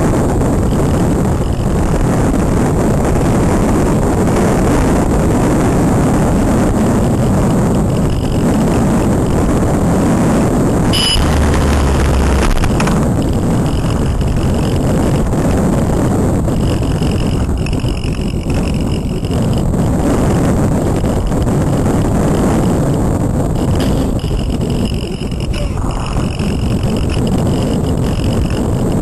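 Steady rush of wind over the onboard camera of a Multiplex Cularis model glider in flight. A faint high whine comes and goes in the second half, and there is a short click about a third of the way in.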